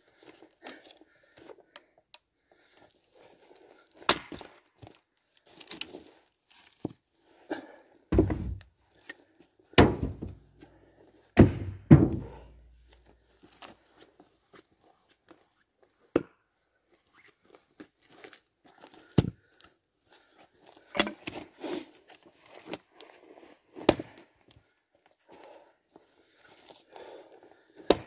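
Heavy wooden thuds, four of them about eight to twelve seconds in, among scattered lighter knocks and footsteps crunching on dry twigs and forest litter, as firewood is cut and handled with an axe.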